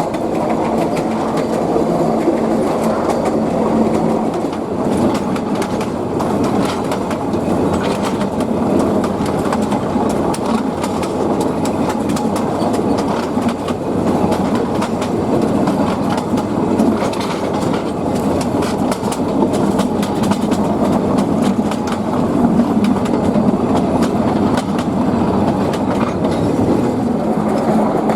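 Narrow-gauge train hauled by a TU2 diesel locomotive running along, its wheels clattering steadily over the rail joints, with a steady low hum at the start and again near the end.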